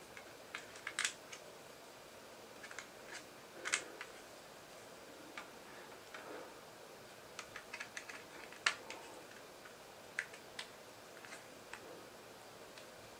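Irregular sharp clicks and taps of hard 3D-printed plastic parts being handled and fitted together, brackets and small pins knocking against the assembly.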